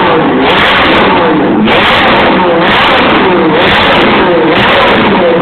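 Ferrari engine revved loudly while stationary, in quick repeated blips about once a second, its pitch sweeping up and falling back each time.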